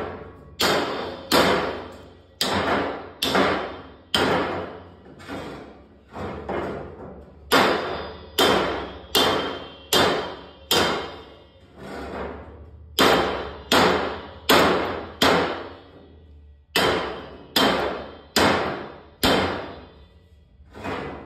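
A hammer repeatedly striking the steel valve collar of an empty propane tank to knock it off: about thirty hard metal blows, roughly one every half second to second with a few brief pauses, each ringing out through the hollow tank.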